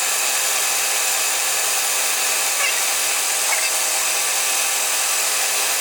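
Power tool running steadily, an even hiss with a faint underlying hum, as the aluminium hammer-head stock is being faced off.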